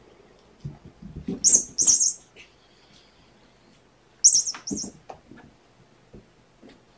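Kittens playing and scrambling: a few soft thumps and two pairs of short, sharp scratchy rustles, about a second and a half in and again a little past four seconds.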